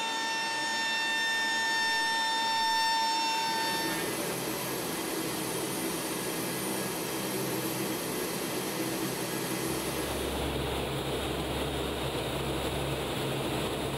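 AC-130 gunship's turboprop engines running, heard from inside the aircraft. A steady high whine for the first few seconds gives way to a broader engine drone, and a deep rumble joins about ten seconds in.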